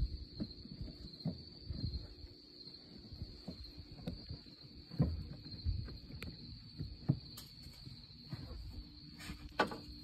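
Soft knocks, rustling and scattered clicks of hands and a handheld camera moving around in a van's engine bay, over a steady high-pitched tone.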